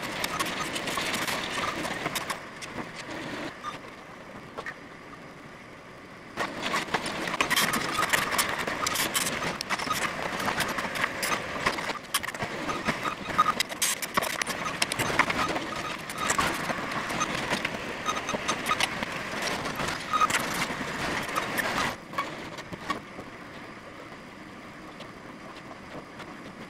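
Construction-site noise: machinery engines running under irregular knocking and clattering. It is cut into stretches that change abruptly, going quieter about two seconds in, louder again about six seconds in, and quieter near the end.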